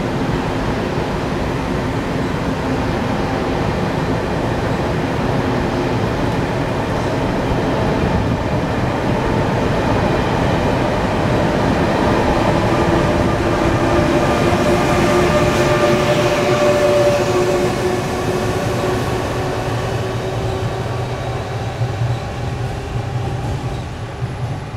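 TRA PP Tze-Chiang electric push-pull express train departing the station, a continuous rumble of the train running on the rails with a faint whine. It grows louder, is loudest about two-thirds of the way through, then begins to fade as the train pulls away.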